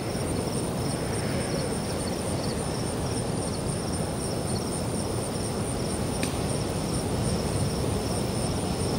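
Rough storm surf breaking and washing up the beach with wind, a steady roar of noise. A thin, steady high whine runs over it, and a single faint click comes about six seconds in.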